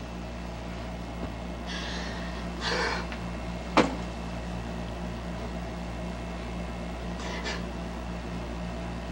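Steady electrical hum and hiss of an old videotape recording. A few short rustling bursts break through, and one sharp click comes about four seconds in.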